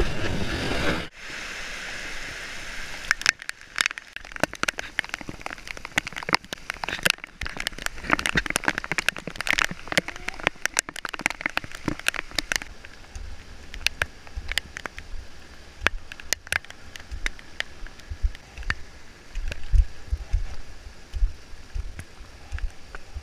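Heavy rain falling, with many drops tapping sharply on the camera, and low thumps from about halfway through. The first second is louder wave water before a cut.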